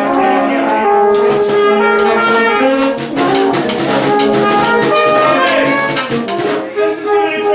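Street brass band playing a New Orleans-style tune together: trumpets, trombones and other horns over percussion keeping a steady beat.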